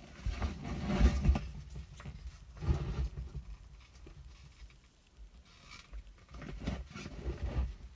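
Gloved hands rustling and scuffing while handling plastic petri dishes, in irregular bursts: strongest about a second in, again near three seconds, and twice more near the end.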